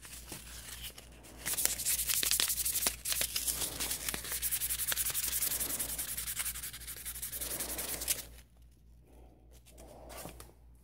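Hand sanding of a carved wooden slingshot fork with about 300-grit sandpaper: quick back-and-forth rubbing strokes that start about a second and a half in and stop about eight seconds in. This is the light fine-sanding stage, catching a few rough corners.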